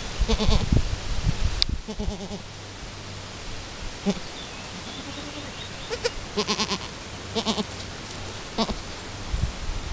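Goats bleating, a Chamois-coloured Alpine nanny and her newborn kid: a string of short, wavering bleats, with several in quick succession about six to eight seconds in. A few low thumps come in the first two seconds.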